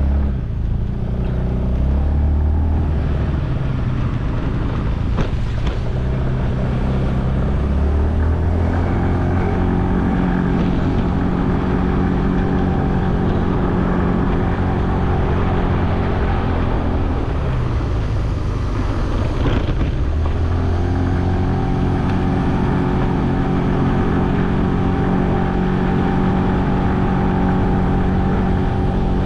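Motor scooter engine running under way, its note dropping about two-thirds of the way through and then picking up again, over a steady rush of wind and road noise.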